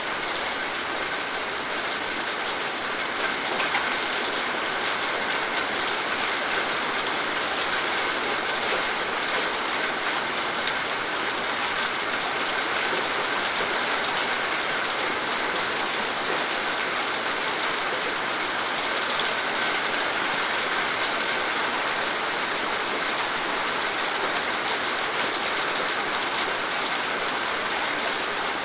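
Steady rain falling: an even hiss of rain with scattered individual drop ticks, holding at the same level throughout.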